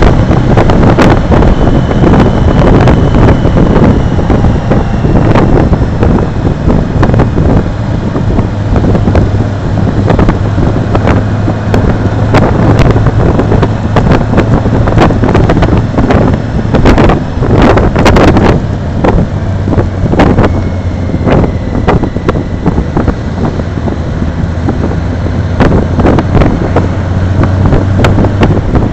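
Motorcycle riding at road speed: a steady low engine drone under loud wind buffeting on the microphone, with a few harder gusts a little past halfway.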